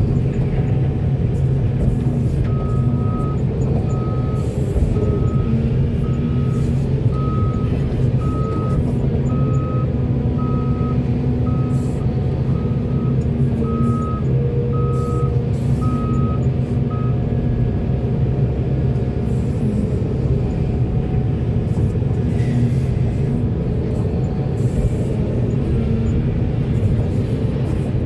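Heavy diesel construction machinery running steadily, with a backup alarm beeping about once a second that starts about two seconds in and stops after about fifteen seconds.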